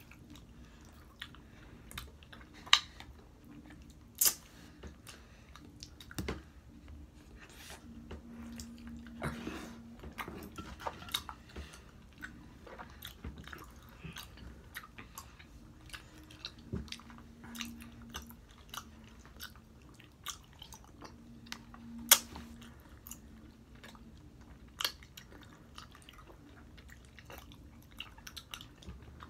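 Gummy candy being chewed with open-mouthed smacking: wet lip and tongue clicks scattered irregularly, a few of them much louder and sharper. A faint low hum runs underneath and swells now and then.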